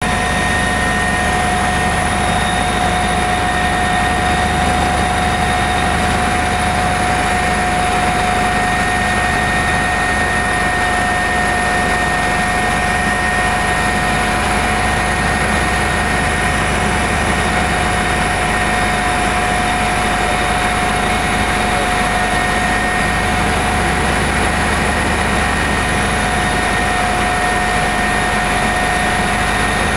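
Eurocopter EC145 twin-turbine helicopter running steadily, with a dense rotor and engine noise and a constant high whine.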